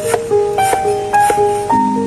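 Background music: a slow piano melody of single struck notes, with a low chord coming in near the end.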